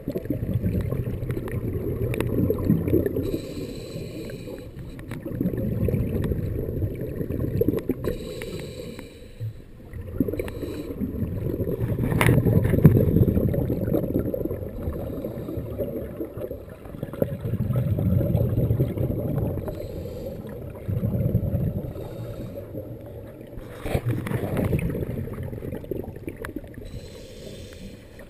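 Underwater scuba breathing: exhaled regulator bubbles rumble and gurgle in rounds every few seconds, with fainter hissing between the breaths.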